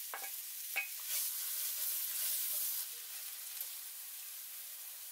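Sliced red onion sizzling in hot oil in a nonstick pan while being stirred with a wooden spatula, with a couple of light clicks in the first second. The sizzle swells for a while from about a second in, then settles.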